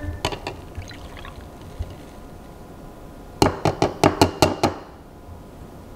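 Thick green juice poured from a plastic juicer cup into a drinking glass, with a quick run of sharp clinks about three and a half seconds in as the cup's rim knocks against the glass. The clinks are the loudest sound and last about a second.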